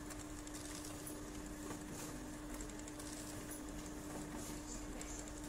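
Ricoh MP C2003 colour copier running a copy job from its document feeder: a steady hum, with faint irregular ticks as sheets feed through and drop into the output tray.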